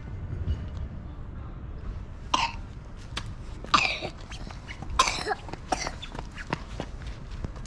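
A person coughing four times, the first about two seconds in and the rest roughly a second apart, over a steady low rumble.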